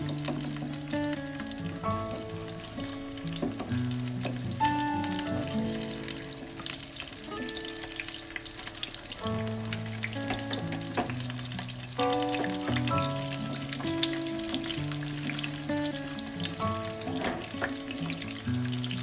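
Eggs frying in hot oil in a nonstick pan, crackling and sizzling steadily, with a wooden spatula scraping and lifting them. Instrumental background music with held notes plays over it.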